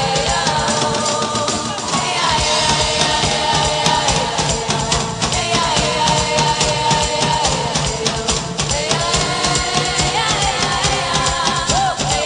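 Background music: a rock-pop song with singing and a steady drum beat.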